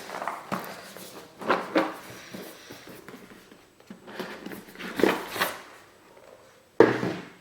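Cardboard jigsaw puzzle boxes being handled: a few separate soft rustles and knocks, the loudest a sharp knock near the end.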